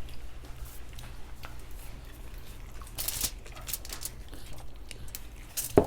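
Eating sounds: chewing, small clicks and a brief rustle of food being handled, over a low steady hum, with one sharp knock just before the end.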